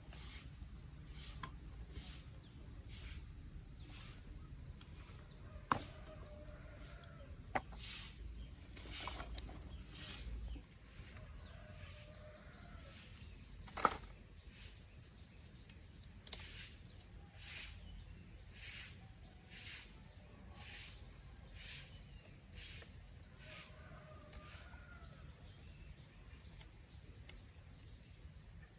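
Crickets trilling steadily, with evenly spaced short rasping strokes about one every three-quarters of a second and three sharp clicks.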